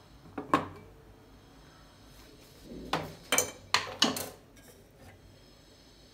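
Kitchenware knocking and clinking as a glass jar with a metal mesh strainer is set on a gas stovetop and an aluminium pot is handled on the burner grate: one knock about half a second in, then a quick run of four clinks and knocks around three to four seconds in.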